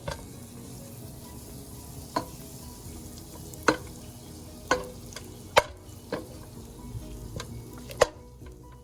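A utensil knocking against a cooking pot about six times, each knock short and ringing briefly, as butter goes into the pot. A faint steady hiss sits underneath.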